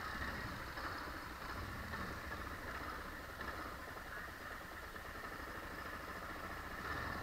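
Motorcycle engine idling steadily while stopped at a red light.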